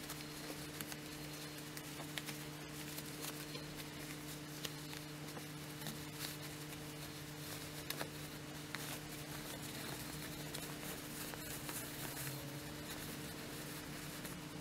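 Faint rustling of cotton fabric with scattered soft ticks as fingers work a sewn fabric circle right side out through a gap in its seam. A steady low hum sits underneath.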